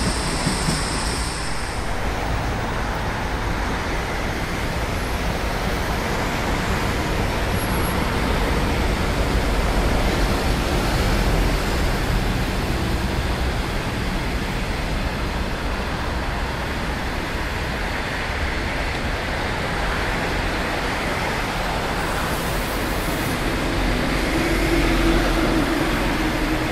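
Passenger train of 25Z coaches rolling past, a steady rumble and rush of wheels on rails. A faint high ringing dies away about two seconds in.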